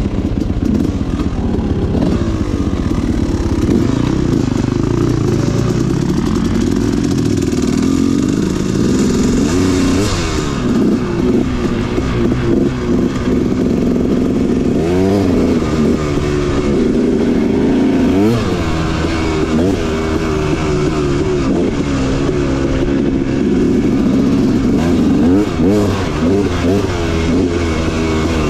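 Dirt bike engine running hard while being ridden, its pitch rising and falling repeatedly as the throttle is opened and closed and the gears change.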